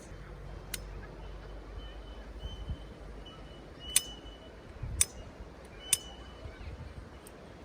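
Sharp clicks or knocks at irregular intervals, about five in all, a couple of them followed by a brief high ringing tone.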